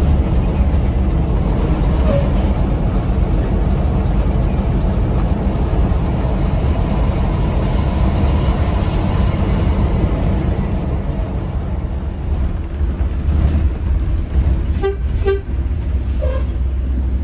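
Mercedes-Benz OH 1626 NG coach's diesel engine and road noise, a steady low rumble heard from inside the cabin at speed. A short horn toot sounds near the end.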